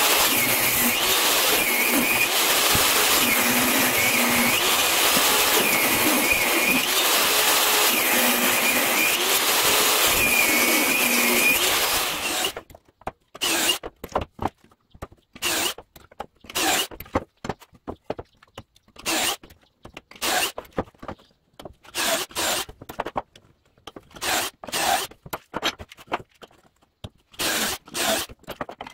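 Jobsite table saw running while ripping pine 2x4s, loud and steady, its note dipping and recovering every two seconds or so as the blade takes each cut. It stops abruptly about 12 seconds in, and a cordless drill follows, run in short bursts as it bores pocket holes through a pocket-hole jig clamped to a 2x4.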